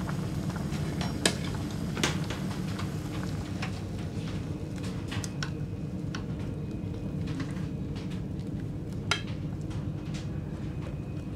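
Metal utensils clinking against pots and dishes with a few scattered sharp clicks, as soup is ladled out over a steady low hum.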